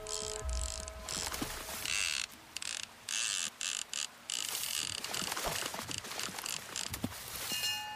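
Edited-in sound effects for an animated channel logo: a run of clicking, ratchet-like mechanical sounds and short hissy bursts that start and stop abruptly, with a few steady tones coming in near the end.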